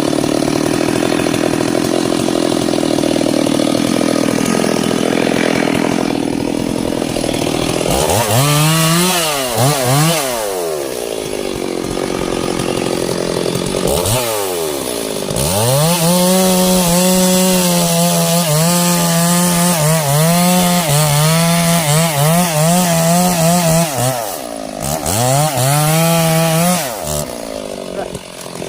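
Stihl chainsaw cutting into sengon wood under load, then running at high revs out of the cut, its engine speed dropping and picking up again several times.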